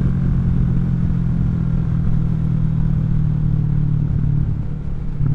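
Kawasaki Vulcan 650 S parallel-twin engine through a CS Racing aftermarket exhaust, running steadily while riding, a little quieter just before the end.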